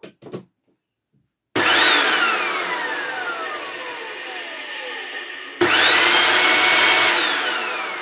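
Hoover Turbopower vacuum cleaner motor run bare in its opened housing during a bearing service: switched on about a second and a half in, its whine falling as it winds down, then switched on again about two seconds later, rising to a high steady whine and winding down once more near the end. Loud, with the motor's bottom bearing not yet serviced.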